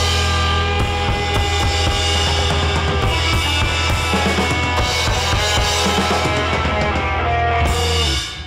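Rock background music with a full drum kit and held instrumental tones, fading out near the end.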